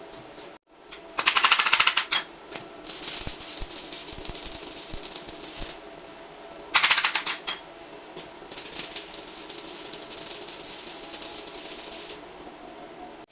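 Electric arc welding on steel: a fast crackling arc in two loud runs of about a second each, about a second in and again near seven seconds, with quieter crackling in between.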